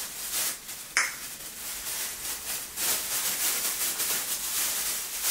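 Clear plastic disposable gloves crinkling and rustling as they are pulled onto the hands, with one sharp click about a second in.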